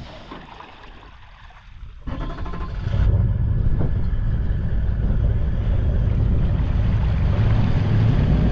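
A vehicle engine comes in suddenly about two seconds in and settles into a loud, steady low rumble.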